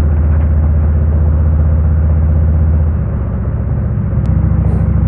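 Harley-Davidson Road King's V-twin engine running under way, heard from the rider's seat; the engine note drops about three seconds in.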